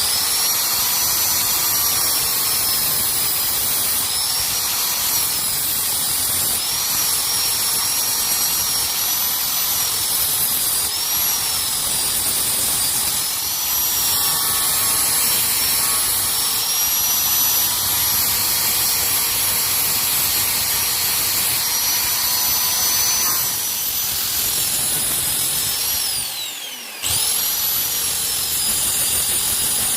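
Electric grinder running steadily against steel, a loud hiss with a high motor whine that dips in pitch and recovers each time the tool is pressed into the work. Near the end the motor winds down and starts up again about a second later.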